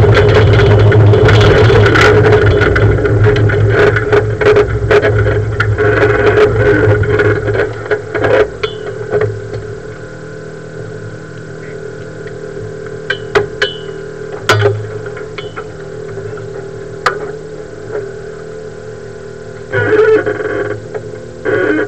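Onboard sound of a Volkswagen rally car: loud engine and road noise as the car runs, dropping after about eight seconds as it comes to a stop. After that, a low steady hum with scattered sharp clicks and knocks, and two short loud bursts near the end.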